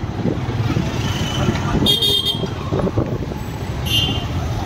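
Road traffic running steadily, with car horns honking: a short honk about two seconds in and a briefer one near the end.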